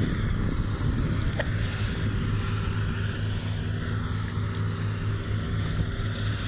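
Engine of harvesting machinery running steadily at a constant speed, a low, even drone.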